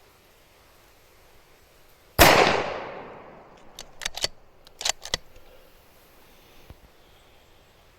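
A single rifle shot from a 6mm ARC rifle, a sharp crack with a long fading echo, about two seconds in. A quick series of sharp clicks follows a couple of seconds later.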